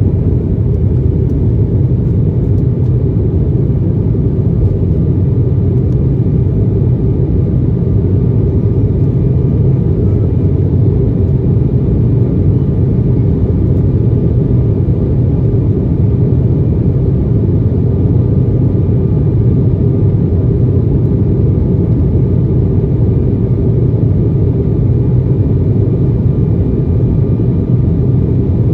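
Cabin noise of an Embraer ERJ 145 with its two rear-mounted Rolls-Royce AE 3007 turbofans running steadily: a loud, even rumble with a faint steady whine over it.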